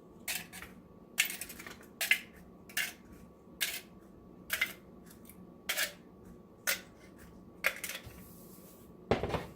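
Dried eggshells crackling and clattering in a flat-bottomed bowl, about one sharp crackle a second, with a fuller burst near the end.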